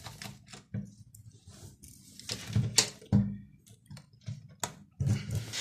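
Gloved hands and a small screwdriver working on a Nikon D7000 camera body: a run of separate light clicks and plastic handling noises as a screw is undone from the grip panel.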